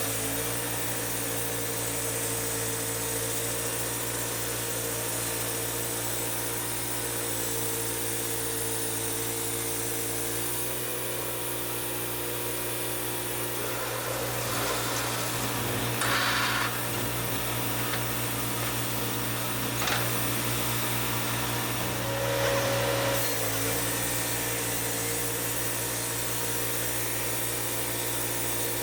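Sawmill running steadily with a constant mechanical hum while milling a mesquite log, with a few brief, sharper noises in the middle.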